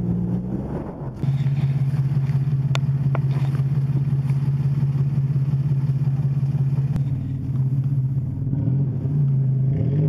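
Toyota 4Runner's engine held at high, steady revs as the SUV works its way up a steep dirt slope off-road. The pitch wavers up and down near the end.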